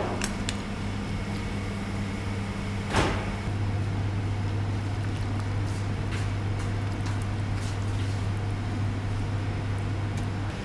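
Steady low hum of kitchen equipment, with a single sharp knock about three seconds in and a few faint clinks of a ladle against the soup bowl and pot.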